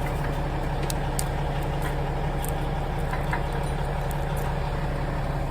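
CAT bulldozer's diesel engine idling steadily, with a low even hum and a few faint clicks over it.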